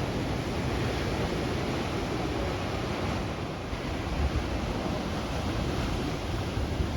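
Ocean surf washing steadily against the shore, with a low, gusty wind rumble on the microphone.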